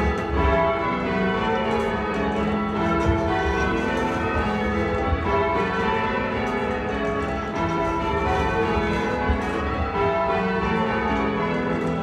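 Church bells rung full-circle in changes, heard from the ringing chamber below the bells: a continuous, even stream of overlapping bell strikes.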